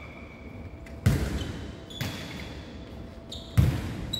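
Jokgu ball being kicked and bouncing on a wooden gym floor during a rally. There are two sharp thuds about two and a half seconds apart, with a softer knock between them, echoing in the large hall.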